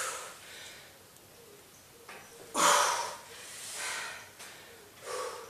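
A woman breathing hard and forcefully from the exertion of sumo deadlifts with a sandbag: about four sharp breaths, the loudest about two and a half seconds in.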